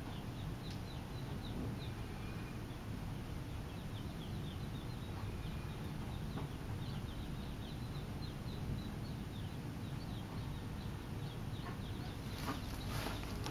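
Mallard ducklings peeping: many short, high, falling peeps, several a second, as the brood feeds. A steady low rumble runs underneath, and a few sharp clicks come near the end.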